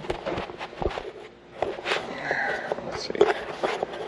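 Footsteps and a quick, irregular run of knocks and clicks as someone moves about and handles things.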